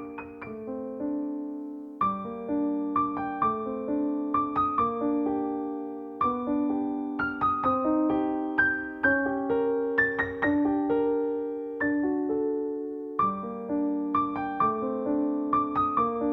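Background piano music: a gentle melody of struck notes that ring and fade, played steadily throughout.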